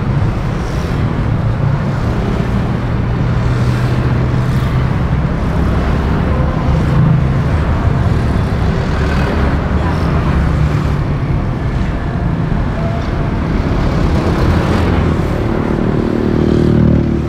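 City road traffic heard from a moving car's external microphone: a steady low engine and tyre rumble with vehicles passing. Near the end a louder engine comes up close.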